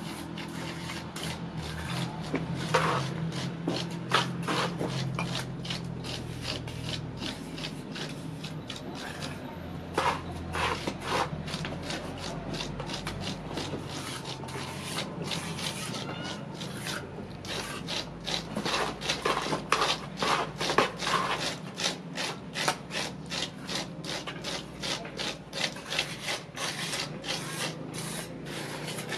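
Gloved fingertips and a small stick scratching and rubbing the surface of fresh cement render, texturing a carved faux-stone wall. The sound is a dense run of short scraping strokes, a few per second, with busier bursts partway through.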